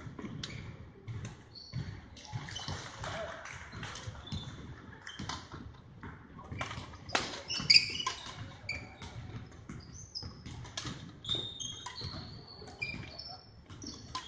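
Badminton rally: rackets striking the shuttlecock in sharp irregular hits, the loudest a little past halfway, with brief high squeaks of court shoes on the wooden floor and quick footsteps.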